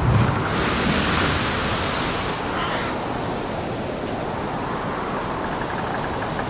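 A ship in heavy seas: a wave hits with a heavy low thud right at the start, then spray and rushing water hiss loudly for about two seconds, over a steady wash of sea and wind.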